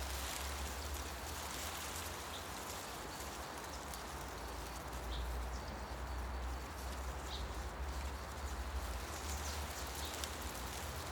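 Forest ambience: wind moving through tree leaves as a steady rustling hiss, with a low rumble of wind. A few short, high ticks stand out, about two, five and seven seconds in.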